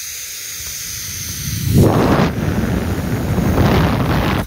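ProSet XT2 pneumatic rivet gun hissing with compressed air while it pulls a blind rivet. The hiss grows louder and rougher about two seconds in and stops sharply near the end.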